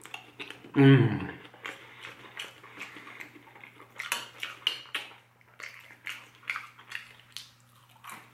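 Metal spoon clinking and scraping on a ceramic plate while apple pie with ice cream is eaten, with chewing. About a second in comes a short, loud, falling low-pitched 'mmm' of enjoyment from the eater.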